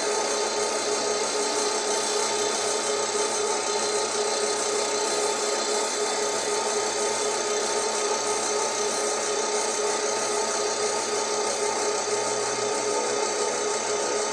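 Wheel diamond-cutting lathe running steadily: an even hiss with several constant whining tones that do not change.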